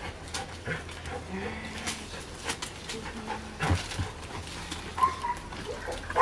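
A Rottweiler working a spring pole toy hung from a tree branch, breathing hard as it jumps and tugs, with scattered knocks and scrapes and a brief high whine about five seconds in.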